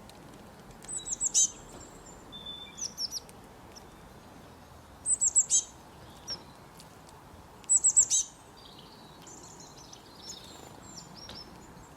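Robin singing: short, high-pitched phrases of quick repeated notes, three of them louder and a few seconds apart, with softer twittering phrases between them and near the end.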